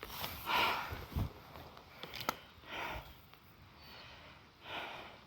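A person breathing audibly while walking, three breaths about two seconds apart, with a soft thump and a sharp click in between.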